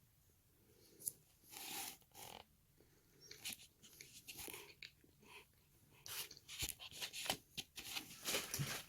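Soft, close-up eating sounds of someone chewing cake: small wet mouth clicks and smacks, sparse at first and more frequent over the last few seconds.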